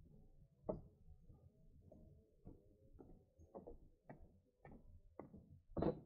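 Footsteps on a hiking trail, faint and even at about two steps a second, with one heavier step near the end.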